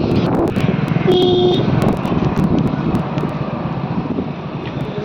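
Steady outdoor rumbling noise, with a short pitched tone about a second in.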